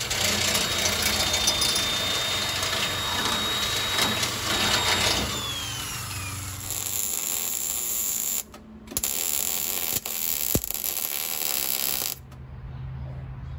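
Corded electric drill boring into steel seat-frame tubing, its motor whine steady and then winding down about five seconds in. Then a wire-feed MIG welder arc crackling and hissing as threaded inserts for the seat bolts are welded in, with a short break a little past halfway, stopping just before the end.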